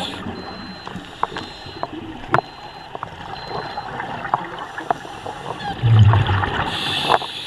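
Scuba diver breathing through a regulator underwater: a steady bubbling hiss with scattered clicks, then a louder rush of exhaled bubbles near the end.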